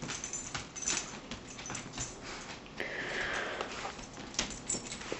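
Cocker spaniel sniffing and breathing, with scattered small clicks and rustles and one longer breathy hiss about three seconds in.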